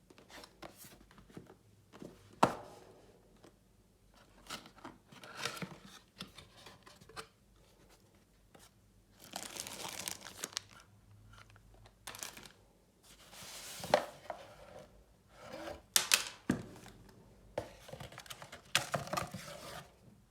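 Headphone packaging being opened by hand: irregular bouts of tearing and crinkling of wrapping, with several sharp clicks and knocks as the box and parts are handled.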